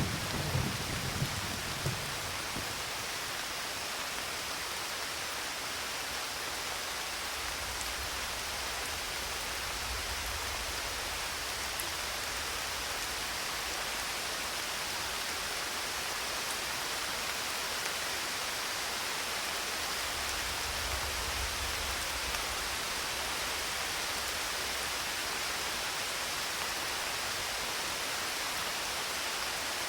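Steady hiss of rain falling, with the low rumble of a thunderclap dying away in the first couple of seconds and two faint low rumbles later on.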